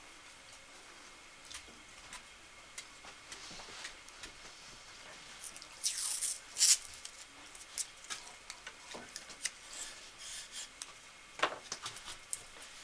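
Masking tape being pulled off its roll and torn into short strips: brief scratchy rips and crinkles with scattered small clicks, the loudest rips about six to seven seconds in.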